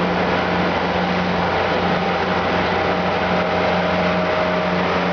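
Engine of a 26-foot Rosborough cabin boat running steadily under way, a constant low hum with a rushing noise over it, heard from inside the cabin.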